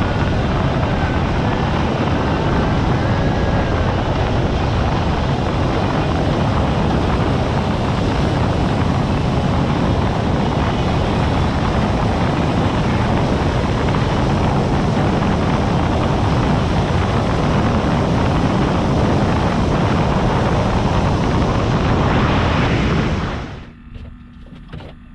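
Motorboat running at speed across the bay: a steady rush of engine, wind and water noise that drops away suddenly near the end.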